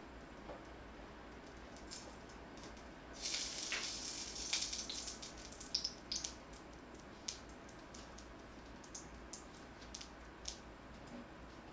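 Cold, hardened lard hitting a hot wok: a burst of sizzling about three seconds in, then scattered crackles and pops as it melts.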